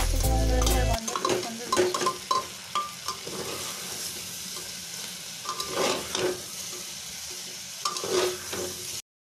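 Chicken pieces sizzling as they fry in an open pressure cooker, stirred with a metal spatula that scrapes and clinks against the pot. Music with a heavy bass plays through the first second, and the sound cuts off suddenly near the end.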